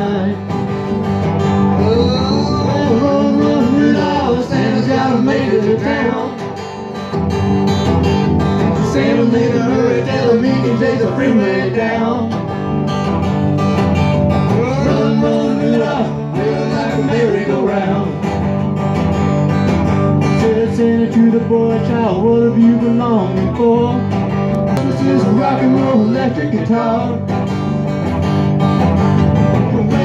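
A live country band playing, with electric guitars and an acoustic guitar.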